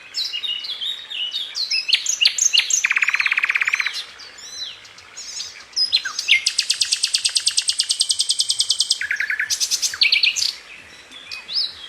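Several songbirds singing and chirping at once: short whistled slurs and chirps, with a rapid trill about three seconds in and a longer, high, rapid trill from about six to nine seconds.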